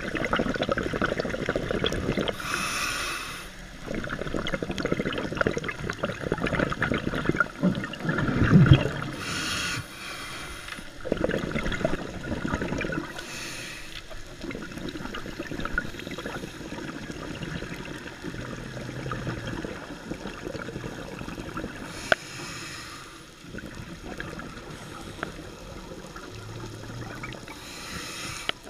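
Scuba diving heard underwater through a camera's waterproof housing: a muffled rumble of moving water, broken about five times by bursts of a diver's exhaled regulator bubbles.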